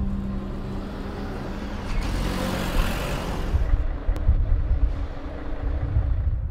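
Road vehicle noise: a vehicle passing, swelling to a peak about three seconds in, then an engine running with a steady hum, over a low rumble.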